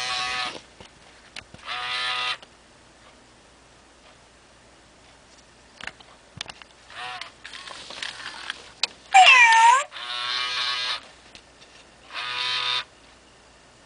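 Hasbro FurReal Friends Lucky animatronic toy kitten meowing through its built-in speaker: a series of short meows, the loudest a longer one rising and falling in pitch about nine seconds in. Faint clicks come between the meows.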